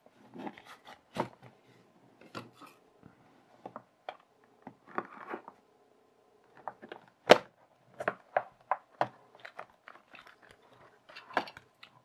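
Cardboard box and clear plastic storage case handled and opened: rustling and sliding, with a series of sharp clicks and knocks from the plastic case, the loudest about seven seconds in.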